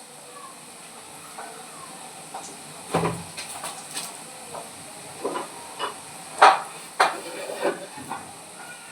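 Beans and potatoes sizzling in a pan with a steady hiss, while a spoon clinks and knocks against the pan several times from about three seconds in as the sabzi is stirred.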